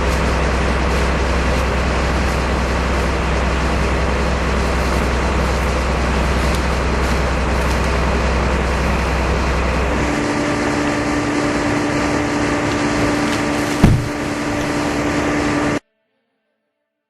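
An engine running steadily with a low hum. About ten seconds in the hum drops away and a steadier, higher tone takes over. There is one sharp knock near the end, then the sound cuts off suddenly.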